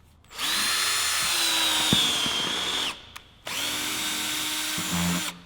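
Power drill driving a screw, run twice: a steady motor whine for about two and a half seconds, a short stop, then about two seconds more, the pitch sagging slightly under load.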